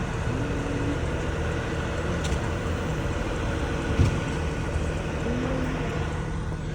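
Steady low rumble of nearby vehicle and street traffic noise, with a single sharp thump about four seconds in.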